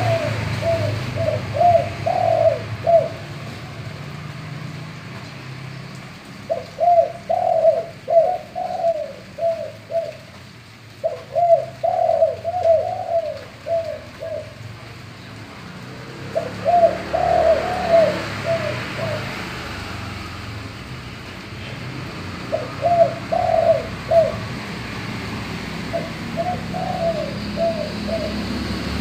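Male spotted dove (tekukur) cooing in a full, deep voice of the kind keepers call gembur or bongor. It gives six phrases, each a quick run of several coos, with pauses of a few seconds between them.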